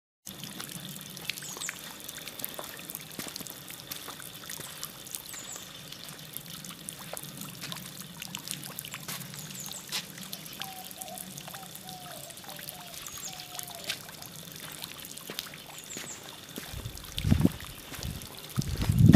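Garden ambience: water trickling steadily, with a short high bird chirp every few seconds and a brief run of lower chirps about halfway. A few loud low bumps on the microphone near the end.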